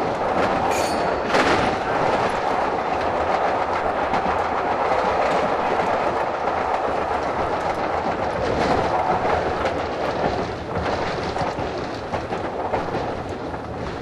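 Pacific Electric 'Hollywood' interurban car 1801 running along the track, heard from inside just behind the motorman: a steady rumble with the wheels clicking over rail joints, growing a little quieter near the end.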